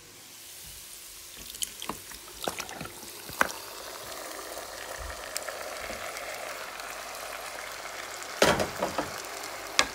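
Chicken and potato curry sizzling in a pot on top of rice fried in ghee. The steady hiss builds over the first seconds. Scattered sharp clicks run through the first few seconds, and louder clattering knocks come about eight and a half seconds in and again near the end.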